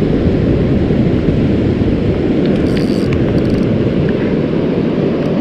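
Wind buffeting the microphone over the steady rush of ocean surf breaking on the beach: a dense, even, low rumble.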